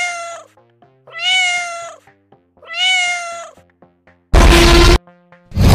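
Domestic cat meowing, the same meow repeated three times about a second and a half apart over soft background music. About four seconds in a loud, harsh noise cuts in for under a second, and another loud, rough sound starts just before the end.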